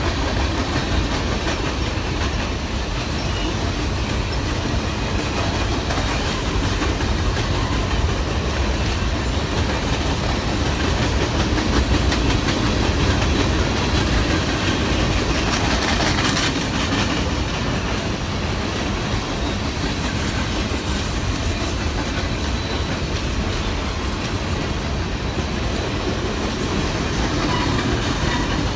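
A train's cars rolling steadily past on the rails, wheels clicking over the rail joints, with no horn.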